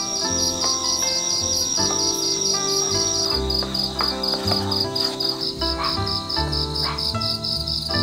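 A cricket calling: a high, unbroken trill for about three seconds, then rapid, even chirps at about five a second, over soft instrumental music.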